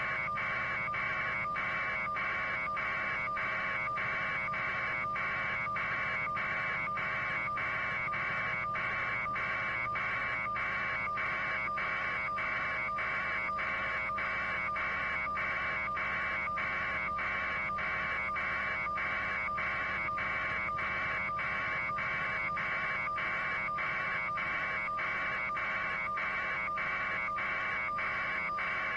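A steady, rhythmic buzzing that pulses evenly about one and a half times a second, over a constant low hum.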